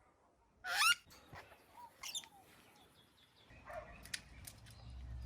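Pet parrot giving two short, shrill calls that bend in pitch, about a second and about two seconds in, followed by a few faint clicks near the end.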